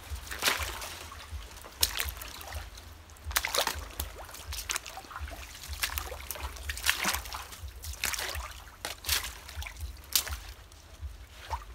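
Footsteps wading through shallow swamp water among fallen nipa palm fronds: irregular splashes and sloshes about once a second, with fronds rustling underfoot.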